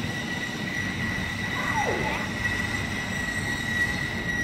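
Railway platform sound of trains: a low rumble with a steady high-pitched whine, and a short falling chirp about two seconds in.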